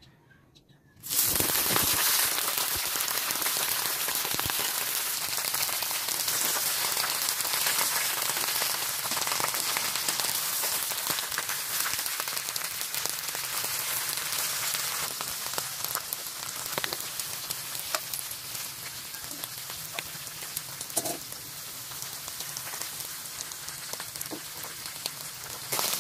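Loud sizzling of hot oil in a pan, starting suddenly about a second in as food goes in, then leafy greens (pechay) frying as they are stirred with metal tongs. There are scattered light clicks, and the sizzle eases off somewhat after the middle.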